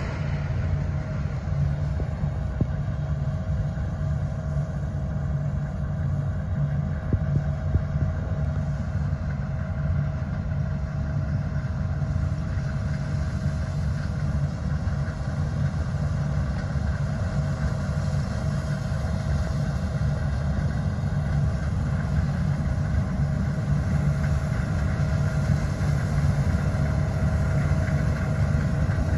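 New Holland CR10.90 combine harvester running under load while harvesting wheat: a steady deep engine drone with a constant high whine from the machine. It grows slightly louder in the second half as the combine comes closer.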